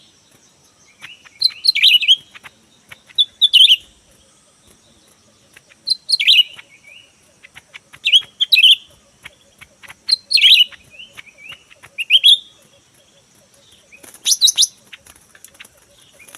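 Greater green leafbird (cucak ijo) giving short, sharp calls, repeated about every two seconds, with a louder, harsher burst near the end.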